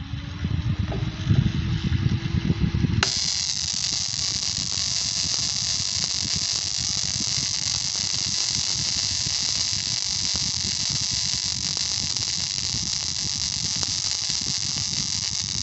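A homemade fan-driven interrupter running: the fan motor spins up with a rising hum, then about three seconds in a loud, steady, high-pitched hissing buzz starts abruptly as the interrupter switches current.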